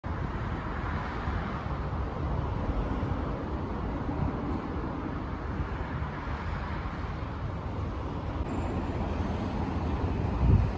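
Steady low rumble of road traffic, with a slightly louder low swell near the end.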